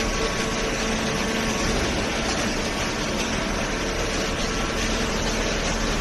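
Hydraulic baler machinery running steadily: a continuous mechanical noise with a steady low hum underneath.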